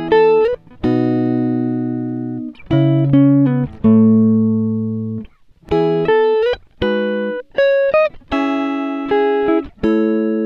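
Background music of plucked string notes and chords, each struck cleanly and fading away, with a few notes sliding up in pitch.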